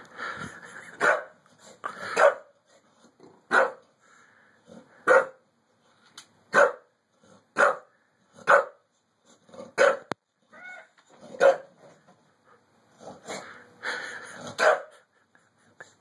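A dog barking: single sharp barks about a second apart, coming closer together near the end.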